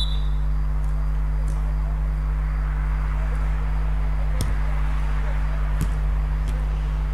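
Steady low electrical hum with hiss, even throughout. Two faint sharp knocks come near the middle.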